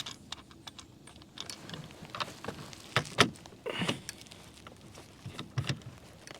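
Irregular small clicks, taps and short scrapes of a cup holder's fitting being screwed into a kayak's mounting rail by hand.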